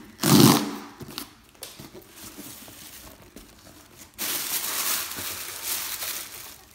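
Packaging being opened by hand: paper or plastic wrapping crinkling and tearing, with small handling clicks. A short loud burst of handling noise comes right at the start, and a louder stretch of crinkling runs from about four seconds in.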